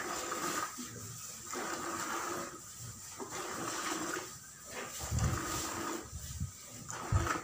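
Hand milking a cow: streams of milk squirting into a metal pail already holding milk, in a regular hissing rhythm of about one burst a second. A couple of low thuds come about five and seven seconds in.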